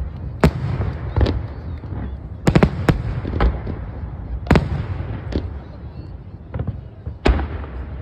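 Aerial firework shells bursting in a large display: about ten sharp bangs at irregular intervals, three in quick succession about two and a half seconds in, over a steady low rumble.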